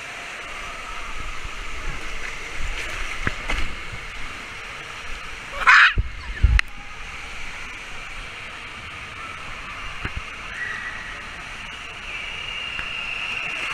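Indoor water park ambience: steady rushing water and splashing, with a sudden loud splash about six seconds in.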